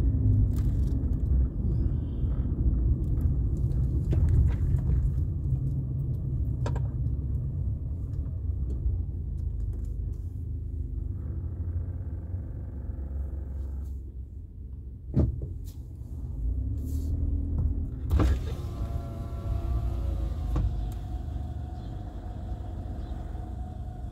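Low, steady rumble of a car's engine and road noise heard from inside the cabin, with a few short sharp clicks.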